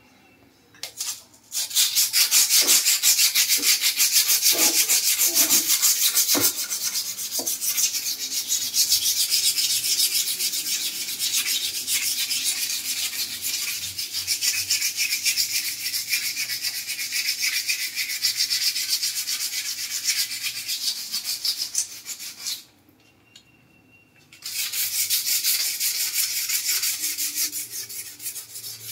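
A hand scrubbing hard-water stains off glazed wall tiles: quick, even rubbing strokes. The scrubbing stops for about two seconds two-thirds of the way through, then starts again.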